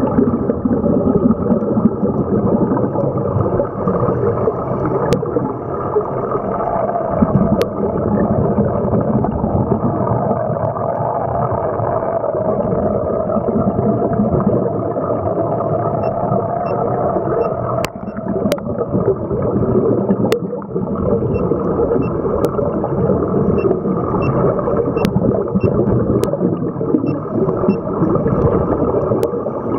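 Muffled underwater noise through a camera's waterproof housing: scuba divers breathing through regulators, their exhaled bubbles gurgling continuously. A few sharp, separate clicks stand out now and then.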